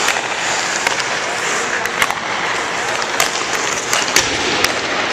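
Ice hockey skates scraping and carving on rink ice, with several sharp clacks of sticks striking pucks.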